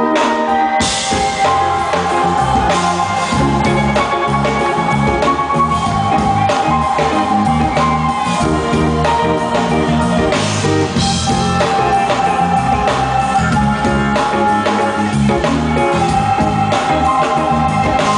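Live band playing an instrumental passage: sustained electric organ chords, with drums, bass and guitar coming in together about a second in and carrying on with a steady beat.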